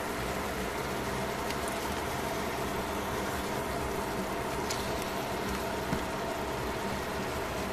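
Chicken leg cooking in bubbling sauce in a metal pot: a steady sizzle and simmer with a low hum under it, and a few faint clicks as tongs turn and press the meat.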